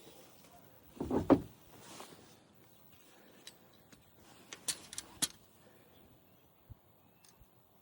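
Hands working fence wire and fittings: a short, dull bump about a second in, then a few sharp clicks near the middle.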